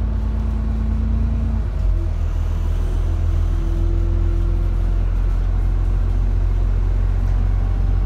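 ADL Enviro 400 double-decker bus's diesel engine heard from inside the cabin, running with a deep, steady rumble. About two seconds in it pulls harder as the bus accelerates, and a faint whine rises over the next few seconds.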